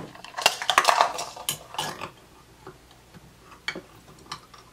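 Clicks and light clatter of plastic measuring cups and a utensil knocking against a glass jam jar as jam is dug out, busiest in the first two seconds and sparser after.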